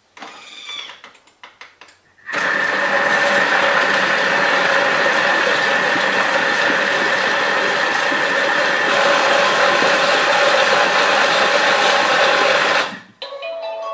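Thermomix TM5's blade motor running at speed 4.5, chopping and mixing a thick muesli of quark, yogurt, oats, apple, pear and walnuts: a steady whirr lasting about ten seconds after a few light clicks, cutting off suddenly near the end.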